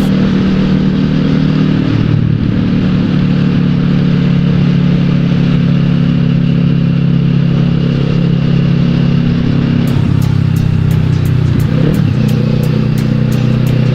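Kawasaki ER-6n's parallel-twin engine running steadily at low speed in city traffic. Its note shifts about two seconds in and again near the end.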